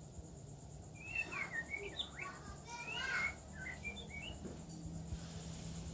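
Young murai songbird twittering in a run of quick, varied chirps that rise and fall in pitch. This is a juvenile's soft practice chatter while it learns to sing. The chirps run for about three seconds, starting about a second in.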